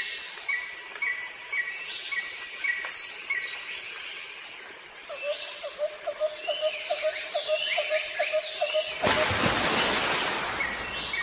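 Birds chirping and calling over a steady high insect drone. Short chirps repeat about twice a second at first, and a faster run of lower chirps comes in the middle. A broad whoosh of noise swells about nine seconds in.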